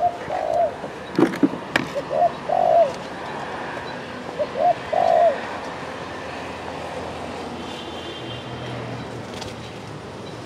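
Spotted dove cooing: three low two-part coos, each a short note and then a longer arched one, in the first five seconds. Two sharp knocks come between the first and second coo.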